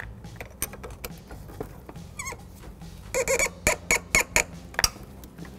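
Metal squeaks from a 10 mm wrench tightening the negative battery cable's terminal clamp onto the post: a brief wavering squeak, then a quick run of about six short, sharp squeaking strokes.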